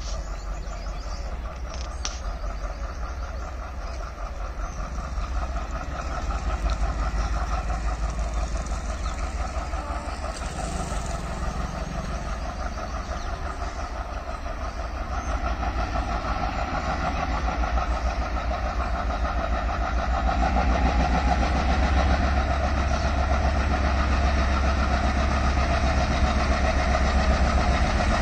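Twin ALCo diesel locomotives working hard as they approach, their engine drone growing steadily louder, with a low rumble underneath.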